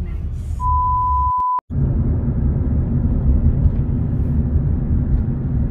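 Steady low rumble of a car on the road. About half a second in, a single steady electronic beep lasts about a second, then the sound cuts out for a split second before the rumble carries on.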